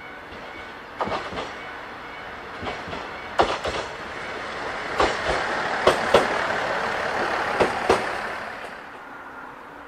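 Diesel railcar running past on the track, its wheels clacking over rail joints in a series of sharp clicks. The running noise builds towards the middle and fades away near the end.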